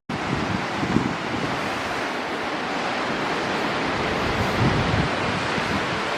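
Strong wind blowing over the microphone: a steady rushing noise with uneven low buffeting gusts.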